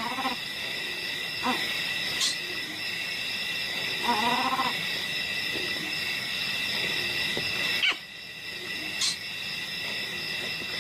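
A steady night chorus of insects chirping, with an animal's short call twice, near the start and about four seconds in.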